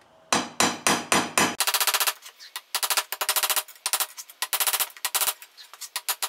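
Ball-peen hammer forging a red-hot leaf-spring steel blade on a steel block anvil. About five duller blows come first, then a fast run of ringing strikes at about four or five a second, broken by short pauses.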